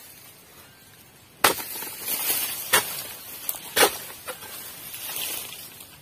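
A dodos (pole-mounted chisel blade) striking and cutting oil palm frond stalks: a sharp hit about a second and a half in, then several more at roughly one-second intervals, with rustling and swishing as the cut palm fronds fall.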